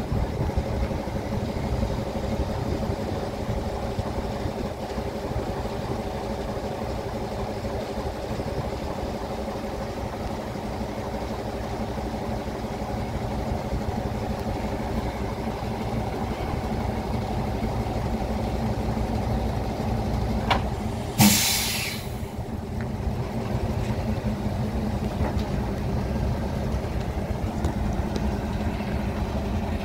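Diesel shunting locomotive MD&HB No. 45 with its engine running at a low steady rumble. About two-thirds of the way through comes a sudden loud hiss of escaping air lasting under a second.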